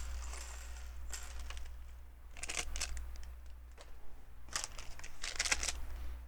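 LEGO plastic pieces being handled and fitted together: several clusters of small clicks and rattles, with a faint rustle between them, over a steady low hum.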